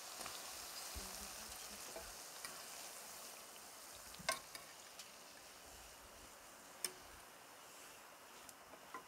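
Hot oil sizzling as pieces of fried dough pastry cook in a frying pan, the hiss fading gradually as the last pieces are lifted out. Two sharp clicks stand out, about four and seven seconds in.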